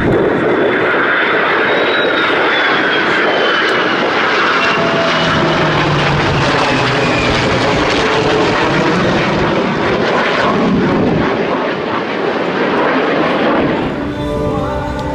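A formation of an F-22 Raptor, a P-51 Mustang and an A-10 Warthog passing overhead. The loud, steady jet and engine noise carries a high whine that slowly falls in pitch as the aircraft go by. Music comes back in near the end.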